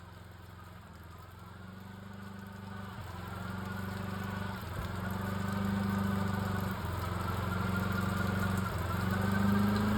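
Ford Crown Victoria's 4.6-litre V8 running under throttle, rising and easing off in pulls about every two seconds and getting louder throughout.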